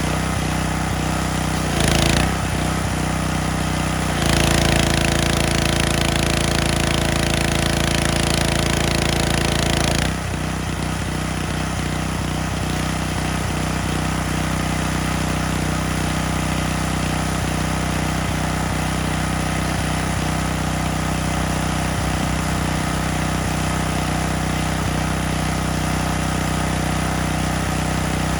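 Small gasoline engine of a pressure washer running steadily. A brief spray hiss comes about two seconds in, and a longer, louder spray runs from about four seconds to about ten seconds in.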